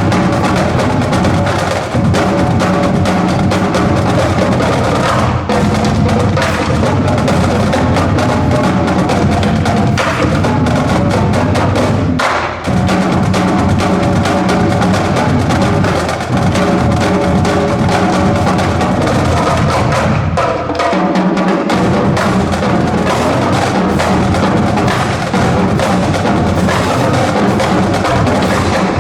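Marching band drumline playing a traditional drum cadence, with snare, tenor and bass drums.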